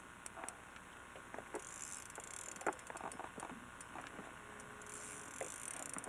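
Faint scattered clicks and taps, with a few short runs of rapid, high ticking.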